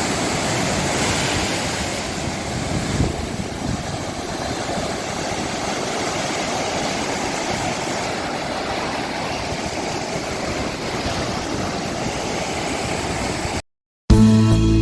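Steady rush of sea surf with wind noise on the microphone. It cuts off near the end, and acoustic guitar music starts.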